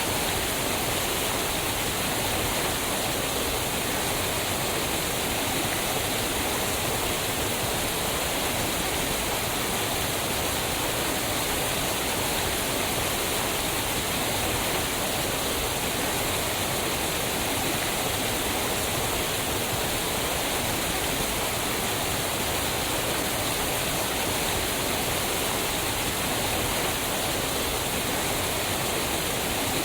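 Waterfall: fast-moving water falling and rushing over rocks, a steady, unbroken roar of spray and splash.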